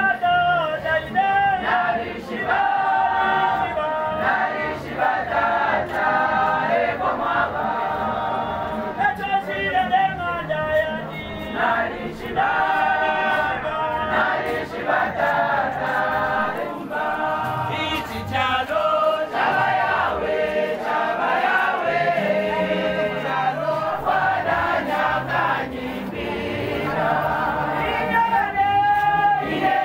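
A church women's choir singing a hymn together, many voices holding long notes.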